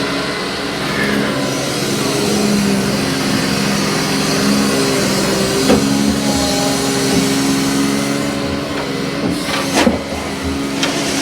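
Heavy boom machine's engine running steadily under load, its pitch shifting a little as it works. Sharp clanks come at about six and ten seconds in.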